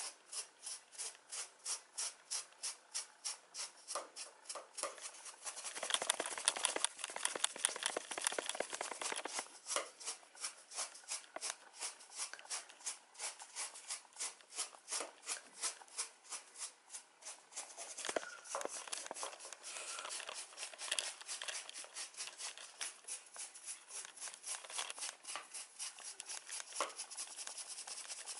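A grooming brush scraping through a cat's fur in quick, regular strokes, about two to three a second, getting faster and louder for a few seconds about six seconds in.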